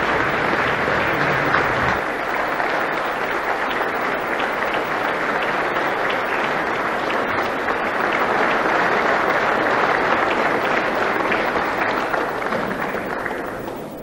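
Large assembly of people applauding steadily, the clapping thinning out and dying away near the end.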